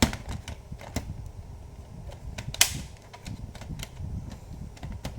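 Plastic clicks and taps from a laptop being handled, with two loud snaps, one at the start and one about two and a half seconds in, as the battery and casing are fitted back.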